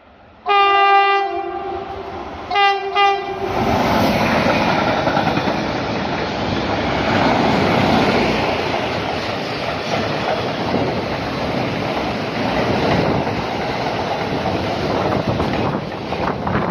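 Locomotive horn sounding one long blast and then two short ones as a freight train approaches. The train of double-deck car-transporter wagons then passes close by with a steady noise of wheels on rails.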